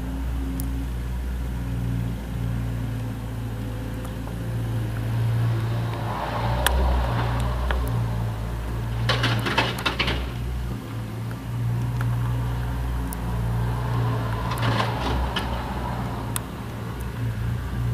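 Mustang 2054 skid steer loader's engine running steadily, with bursts of metallic clattering and rattling three times as the machine works, the loudest about nine to ten seconds in.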